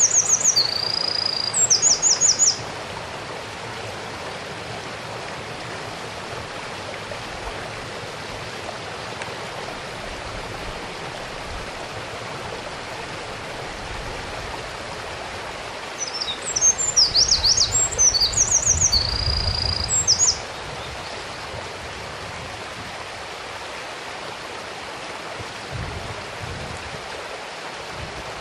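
Eurasian wren singing loud, rapid high trills. One song ends about two and a half seconds in, and a second song of about four seconds starts about sixteen seconds in. Under both runs the steady rush of a mountain stream.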